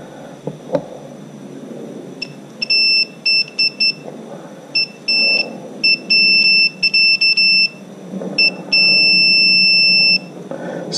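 Digital multimeter's continuity beeper sounding in short, broken beeps as the probe leads make and break contact on the outboard stator's two leads, then one steady beep of about a second and a half near the end. The beep signals continuity through the stator winding.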